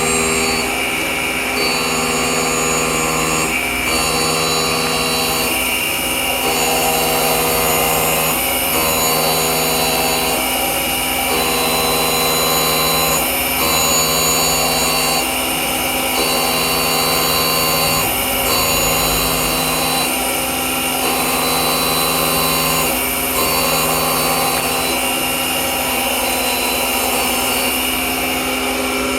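DoAll surface grinder running in automatic mode: a steady motor and spindle hum, with the sound changing at each reversal of the reciprocating table about every two and a half seconds.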